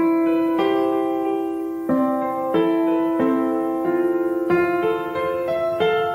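Background piano music: a slow melody of single notes, a new note struck about once a second and each left ringing as it fades.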